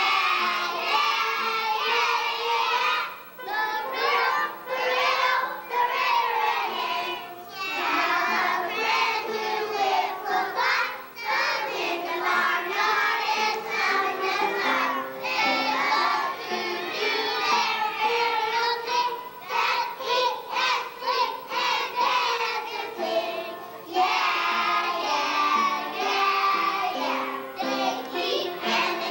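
Children singing a song with musical accompaniment.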